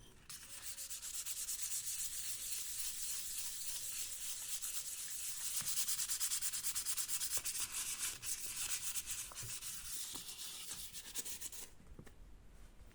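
Sanding during the axe restoration: a steady, rasping high hiss of rapid strokes. It starts just after the beginning and stops about a second before the end.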